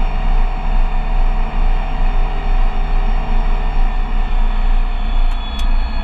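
Diesel engine of a heavy machine running steadily, with two faint clicks about five seconds in.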